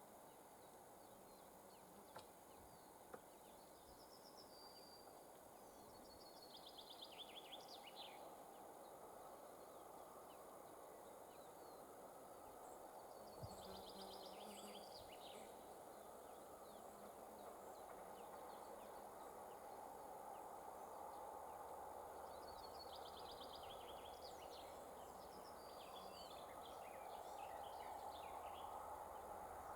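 Near silence with a small bird singing short, trilled phrases three times, over a faint steady hiss that slowly grows louder.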